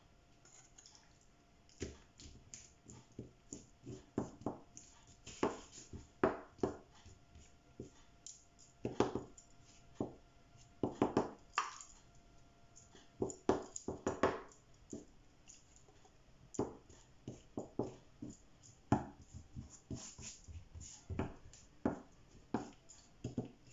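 Wooden spoon knocking and scraping against a saucepan while chicken filling is scooped out and spread on filo pastry, in irregular sharp clicks and taps, several a second.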